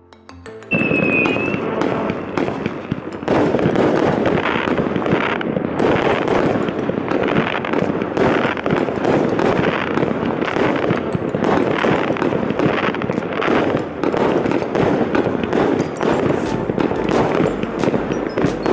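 Consumer fireworks going off in a dense, continuous run of bangs and crackle, with a brief whistle about a second in. It gets louder about three seconds in.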